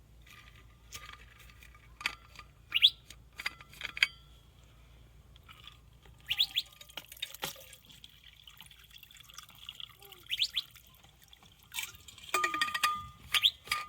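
Birds chirping: scattered short, quick rising notes, with a few sharp clicks between them.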